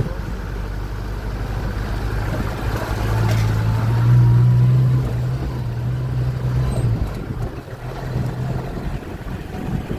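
Motor vehicle engine running under steady road and wind noise. Its low drone swells about three seconds in, is loudest around four to five seconds, and drops back about seven seconds in.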